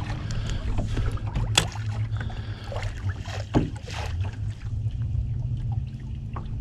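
Steady low mechanical hum of equipment aboard a small fishing boat, with a sharp click about one and a half seconds in and a soft knock a couple of seconds later.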